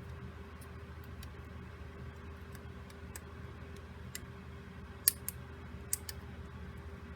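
Small clicks and taps of plastic Rubik's Cube pieces being handled and fitted, with a few sharper clicks about five to six seconds in, over a faint steady hum.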